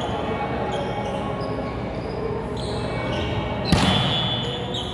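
A volleyball struck hard once, a sharp slap about three and a half seconds in that rings briefly in the hall, over the steady background noise of a large indoor gym.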